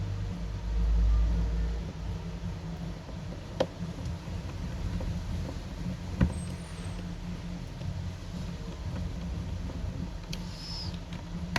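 Steady low rumble with two sharp clicks, the clicks from a small screwdriver and the phone's parts being handled as the back screws are refitted.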